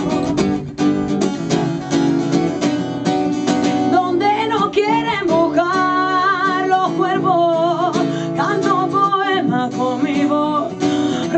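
Acoustic guitar strummed steadily, with a woman singing over it from about four seconds in, her held notes wavering.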